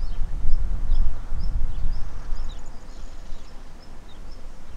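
Level crossing warning signal ringing steadily, short high electronic pips about twice a second, over a heavy low rumble that eases off about halfway through.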